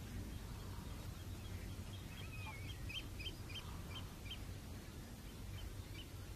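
A small bird calling in a run of short high chirps, about three a second, starting with a brief warble about two seconds in and returning with two more chirps near the end, over a low steady background rumble.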